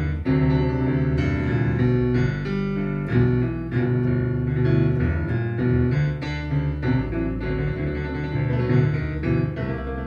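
Boogie-woogie piano playing an instrumental passage with many quick notes over a busy bass. It is a recording played back over Martin Logan SL-3 electrostatic loudspeakers and picked up by room microphones.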